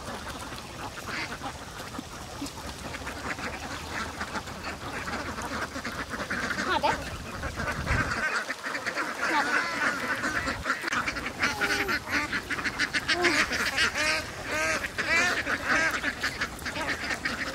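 A large flock of domestic ducks quacking and chattering, many short calls overlapping, growing louder and busier about halfway through.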